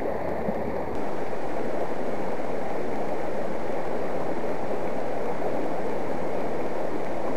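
Steady rush of a shallow river running over rocks and riffles, a little louder from about a second in.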